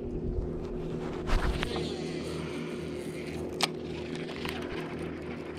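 Boat motor running steadily, a low hum with several tones held at one pitch, with a few sharp clicks about a second and a half in and again past three and a half seconds.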